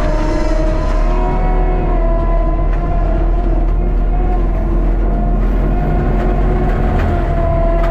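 Skid steer's diesel engine and forestry mulcher running steadily under load, with a steady whine over the rumble.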